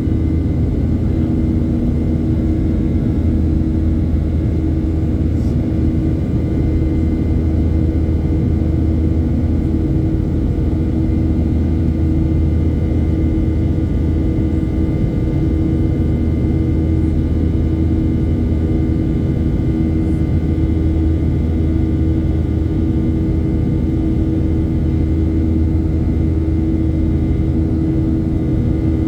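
Boeing 737-800 cabin noise while climbing after takeoff: the CFM56-7B jet engines' steady roar, a deep rumble with several constant tones laid over it, heard from inside the cabin.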